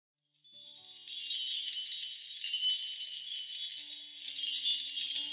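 Wind chimes tinkling in a dense, high shimmer that fades in during the first second.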